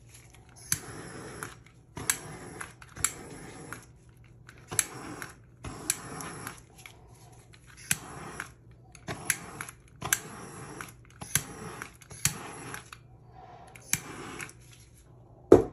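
Handheld butane torch fired in about a dozen short bursts over wet epoxy resin, each burst a click of the trigger followed by the hiss of the flame. A single loud thump comes near the end.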